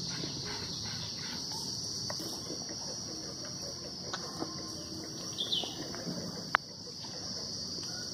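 Steady chirring of insects, with a few sharp clicks, the loudest about six and a half seconds in.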